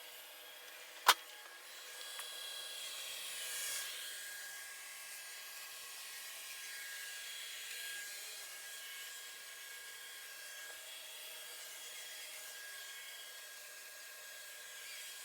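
Robot vacuum cleaner running: a steady whir with a thin high whine. A single sharp click about a second in.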